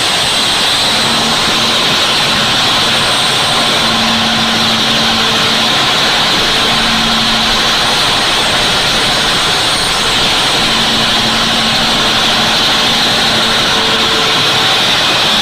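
Large excavator's engine running steadily: a constant loud hiss with a faint hum that comes and goes.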